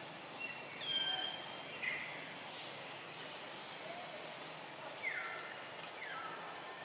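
Several brief high-pitched animal calls over a steady outdoor hiss: a held whistle-like call about a second in, a short one just after, and two falling calls near the end.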